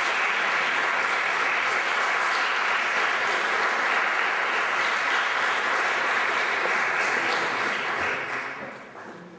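Audience applauding, a dense steady clapping that dies away over the last second or so.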